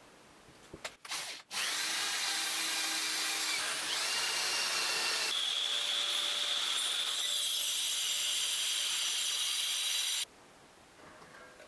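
A power tool running at full speed for about eight and a half seconds, with a sudden start and a sudden stop; its tone shifts higher about five seconds in. A few light clicks come before it starts.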